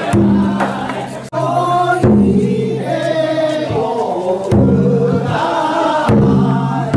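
A group of men chanting in unison in loud, held phrases that start abruptly about four times, roughly every one and a half to two seconds.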